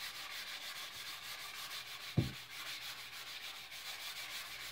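Hand-sanding of a wooden axe handle with the fine side of an abrasive: quick, even back-and-forth scratchy strokes that buff the stripped wood fibres smooth. A single low thump about two seconds in.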